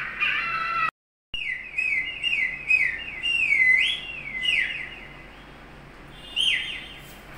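Bird-like whistled calls: a quick run of falling notes, about three a second, starting after a short break about a second in and stopping about five seconds in, with one more call near the end.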